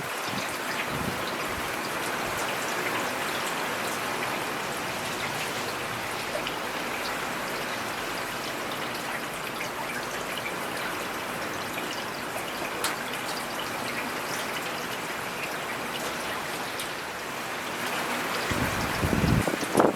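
Steady rain, with scattered individual drops ticking close by. Near the end a louder low rumble swells up briefly.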